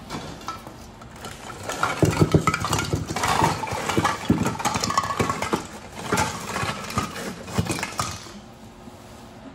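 Christmas ball ornaments being handled and set into an evergreen wreath, knocking and clinking against one another in irregular clicks over a rustle of evergreen branches.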